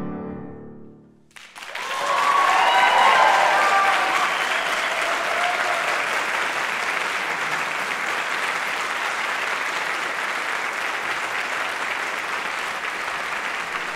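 A last piano chord dies away, and about a second and a half in an audience breaks into applause with some cheering over the first few seconds. The clapping then carries on steadily.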